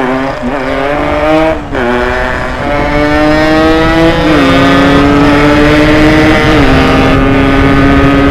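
Yamaha RX-King's ported 135 cc two-stroke single-cylinder engine accelerating under load. Its pitch climbs steadily through each gear and drops sharply at three upshifts, about two, four and six and a half seconds in.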